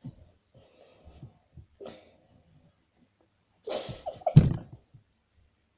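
A child sneezes once, loudly, about four seconds in, after a few faint rustles and scratches.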